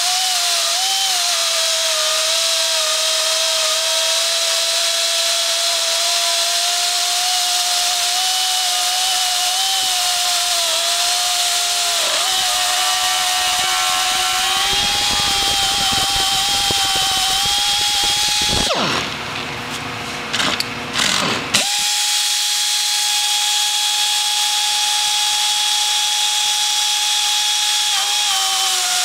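GERIMA SMA 40-P portable edge beveler milling a notch in the edge of a steel plate. Its electric motor runs with a steady whine, joined by rough cutting noise for several seconds around the middle. After a short break in the sound, the motor runs on with a clean, slightly higher whine that dips a little near the end.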